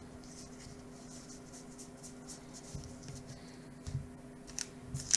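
Soft rubbing and light ticks of baseball cards being handled and slid across a desk mat, with a faint steady hum under it. A few louder rustles come near the end.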